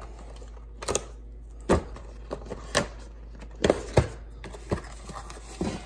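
Cardboard box being handled and opened: a string of about seven irregular knocks and taps as the box is laid down and its flaps are worked open, the loudest about four seconds in.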